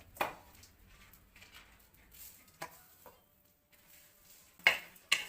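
Quiet cooking sounds of spices being stirred in a pan: a faint sizzle with a few light knocks and scrapes, the loudest two near the end.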